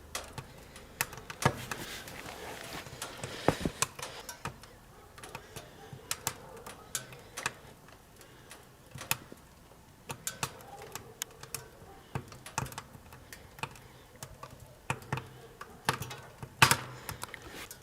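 Firewood crackling and popping in the firebox of a small steel tent stove: irregular sharp clicks at uneven intervals, with a louder pop near the end.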